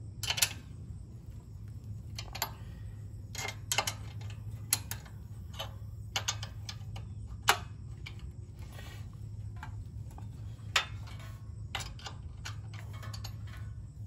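Scattered metal clicks and taps of a 9/16-inch wrench working the steel bolts that mount a pressure-washer pump to its engine, over a steady low hum.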